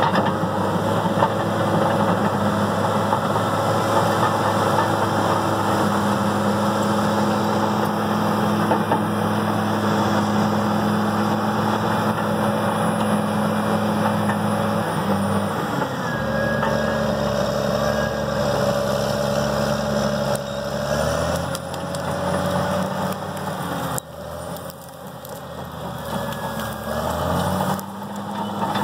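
Caterpillar D6R crawler dozer's diesel engine running steadily as it pushes soil and brush. Its pitch drops about halfway through, then climbs back near the end.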